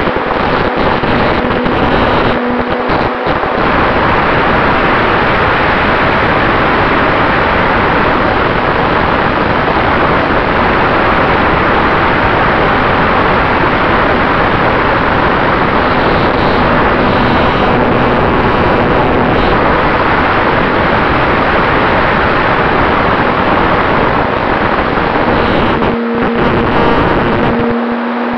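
Radio-controlled Cessna 188 model airplane in flight, heard from its onboard camera: a loud, steady rush of air and motor noise, with a faint hum that rises a few times and fades again.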